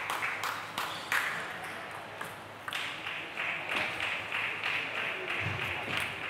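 Sharp clicks come about three a second for the first second. From about three seconds in, spectators clap and cheer in a steady rhythm.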